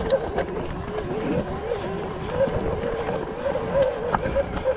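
Specialized Turbo Levo electric mountain bike riding down a dirt forest trail: a steady low rumble from the tyres and frame, a wavering whine that rises and falls, and a few sharp knocks as the bike goes over bumps.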